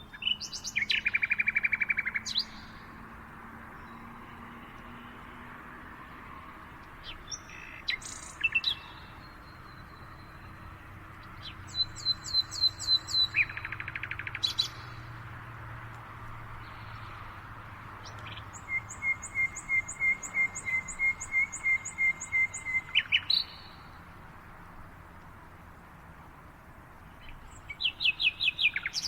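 Several songbirds singing, with rapid trilled phrases of quickly repeated notes and short chirps in between, over a faint steady background hiss. The longest trill runs for about four seconds past the middle, and another comes near the end.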